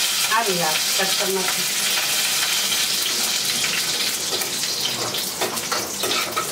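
Garlic and fenugreek seeds sizzling steadily as they fry in hot fat in a small pan on a gas burner: the tempering stage of making kadhi. A few light clicks of a spoon stirring come near the end.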